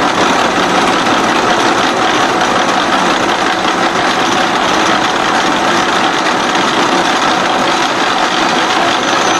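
SXA55 CNC H-beam bevelling machine running, its milling head working along the edge of a steel beam's flange. The machining noise is steady and unbroken.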